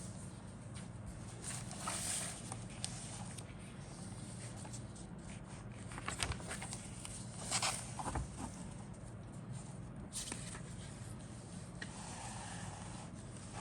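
Rustling and light clicks as the plastic parts and bags of a model kit are handled, over a steady low hum.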